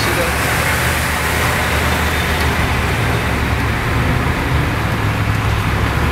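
Road noise from inside a car moving in freeway traffic: a steady low engine and tyre drone under a broad hiss.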